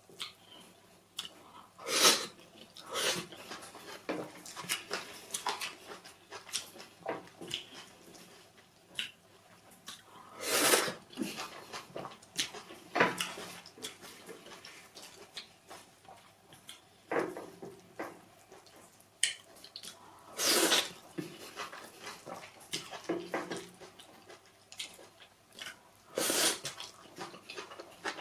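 Close-miked eating sounds of pounded yam fufu with efo riro vegetable soup: wet chewing and lip smacking with small clicks throughout, and a few louder wet mouth noises every few seconds.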